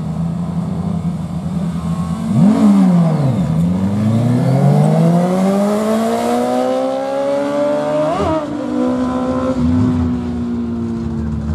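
Street-legal sport motorcycle at a drag strip: engine running steadily at the line, a quick rev about two and a half seconds in, then the launch with the engine pitch climbing steadily for several seconds as it pulls down the track. There is a brief jump in pitch near eight seconds, and then the pitch slowly falls.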